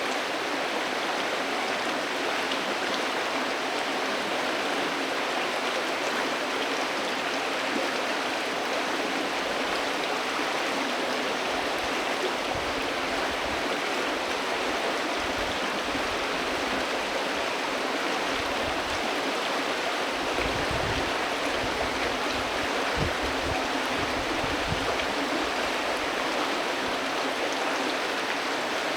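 Steady rush of river water flowing, an even hiss with no break. Occasional low rumbles come and go in the middle.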